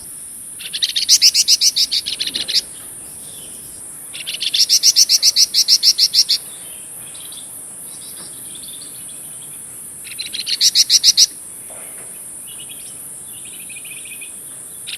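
A flamboyan songbird singing its fast trilling 'trecet' phrases: three bursts of quickly repeated notes, each one to two seconds long, swelling at the start. Fainter bird calls come between the bursts over a steady high-pitched hiss.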